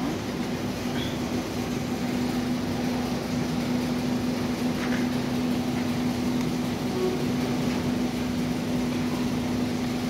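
Washing machine drain pump humming steadily while powered up for testing, one steady low tone over a faint noisy hiss.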